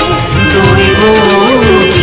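Loud Indian film-style music with a gliding melodic line.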